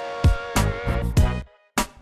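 Background music with a punchy drum beat and held chords; it stops briefly near the end before the beat comes back.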